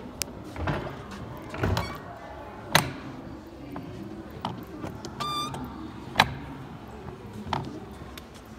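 Hinged flip panels of a museum display being handled, with several sharp clacks, the loudest about three and six seconds in, and a brief high squeak about halfway, over a steady room background.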